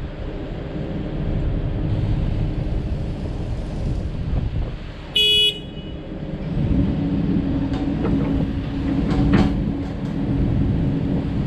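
2014 Takeuchi TB1140 excavator's diesel engine running, working harder from about six and a half seconds in as the hydraulics curl the bucket and lift the arm. A short horn beep sounds about five seconds in.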